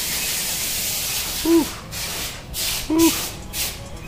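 Hissing spray, steady for about the first two seconds, then coming in quick bursts a few times a second.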